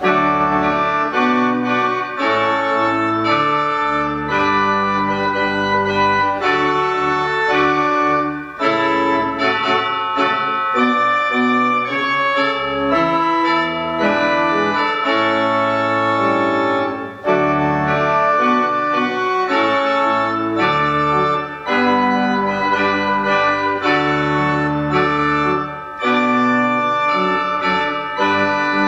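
Organ playing a slow piece in full, sustained chords, with short breaks between phrases and no voices.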